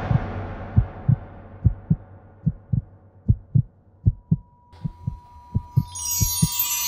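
Heartbeat sound effect: paired low lub-dub thumps, a little under a second apart, over the fading tail of music. From about the middle a steady high tone sounds, and near the end a shimmering chime swells in.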